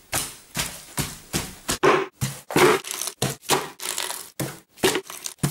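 Bare feet stamping and squishing food in a plastic bucket and on a messy floor: a quick, irregular run of short crunching, scraping strokes, about three a second.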